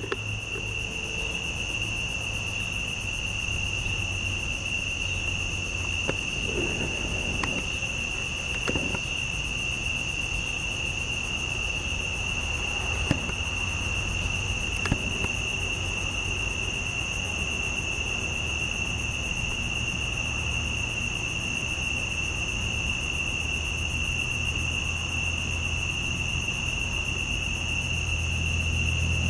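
Steady chorus of night insects, a continuous high shrill trill that does not break. A low hum sits underneath, and there are a few faint clicks.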